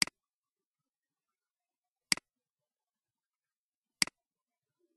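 Computer mouse clicking, three times about two seconds apart, each a sharp press followed at once by a softer release, with near silence between.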